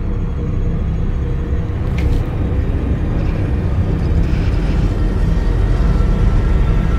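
Low, dense rumbling drone of horror-film sound design, slowly swelling, with a brief sharp click about two seconds in and a thin steady tone joining near the end.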